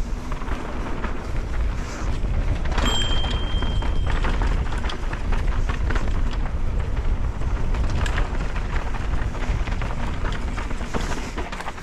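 Pivot Firebird mountain bike descending dirt singletrack at speed: wind rushing over the helmet microphone, tyres rolling on dirt and the bike rattling over bumps. A short, steady high-pitched squeal comes in about three seconds in.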